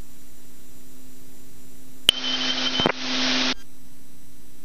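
Steady tonal hum in a light aircraft's intercom and headset audio feed. About two seconds in, a click opens a hiss that lasts about a second and a half with no words: a microphone keyed or opened without speech.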